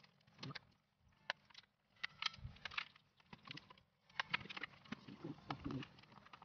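Irregular light clicks and plastic rattles from hands working the screws and clips of a Kia Sportage's front grille.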